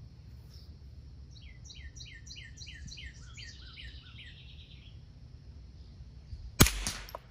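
A bird sings a quick run of about a dozen falling whistled notes ending in a brief trill. About six and a half seconds in comes a single shot from a Ruger 10/22 rifle firing CCI Quiet-22 subsonic .22 LR ammunition: one short, sharp report, the loudest sound here, measured at 94 decibels with the bullet at 873 fps.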